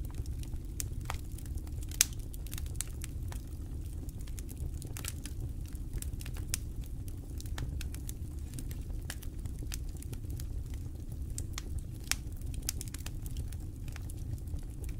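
Wood campfire crackling, with irregular sharp pops over a steady low rumble of the burning fire; one pop about two seconds in is the loudest.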